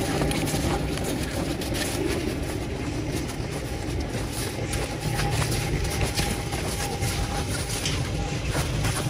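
Footsteps crunching on packed snow, a quick irregular series of crunches over a steady low rumble.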